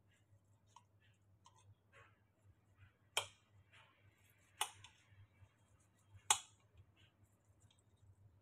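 Metal knife and fork on a ceramic plate, cutting an omelette: three sharp clinks about a second and a half apart, with faint small ticks and scrapes between them, over a faint low hum.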